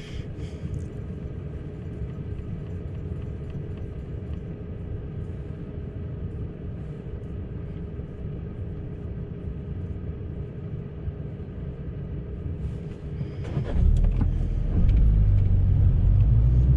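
Inside a Fiat Panda waiting at a level crossing, its engine shut off by the start-stop system: a steady low rumble and a faint even hum in the cabin. About 14 s in the engine starts again and the car pulls away, and the low engine and road rumble grows clearly louder.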